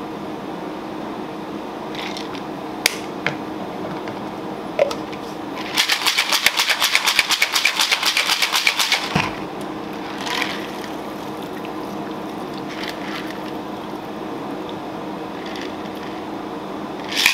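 Ice rattling hard in a metal cocktail shaker tin, a rapid, even rattle for about three seconds midway through. Before it come a few sharp clinks of bar tools, and a steady hum runs underneath.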